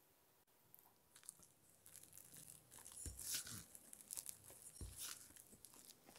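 Spatula mixing red food colouring into thick cake batter in a glass bowl: wet, sticky squelching and scraping that starts about a second in, with two soft thumps as it works the batter.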